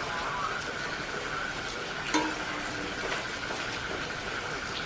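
Sizzling and crackling from foil-wrapped fish grilling over a burning coconut-shell fire, with scattered small crackles and one sharp knock about two seconds in.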